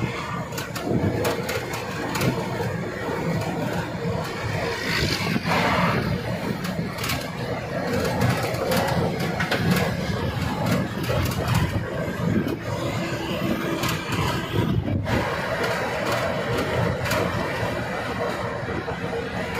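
BharatBenz 1617R truck heard from inside its cab while driving on a highway: steady engine and road noise, with frequent short sharp clicks and rattles from the cab.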